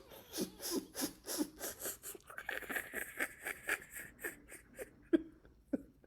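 A person panting and grunting in a quick, even rhythm, about three short breaths a second, gradually thinning out near the end.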